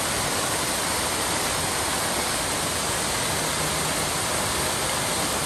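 Small waterfall and rushing stream: water pouring and splashing in a steady, unbroken rush.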